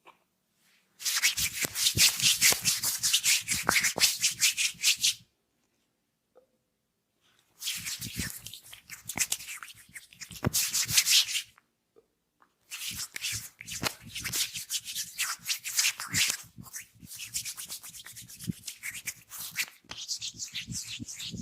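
Hands rubbing briskly with massage oil in quick strokes during an oil massage. There are three bouts, with short silent pauses about 5 seconds and 12 seconds in.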